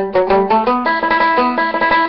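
Irish tenor banjo played solo, picking an Irish reel in a fast, even run of single notes.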